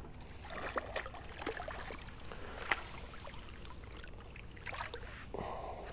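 Light water splashing and dripping with scattered small knocks, as a hooked catfish is landed into the boat.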